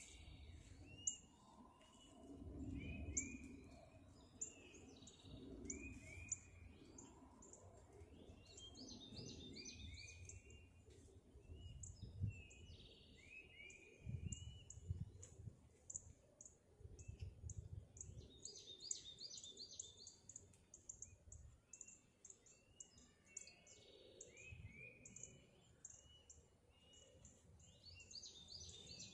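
Faint outdoor bird chorus: several small birds chirping and singing, one repeating a short call about once a second, with quick high chirps throughout. A low rumble comes and goes beneath.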